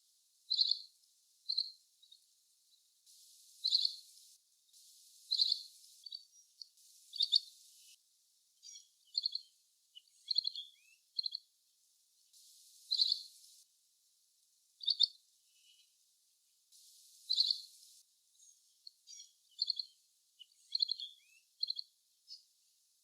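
Asian green bee-eater (little green bee-eater) calling: short, high trilled notes, one to three at a time with pauses between, and quieter, quicker notes in the gaps.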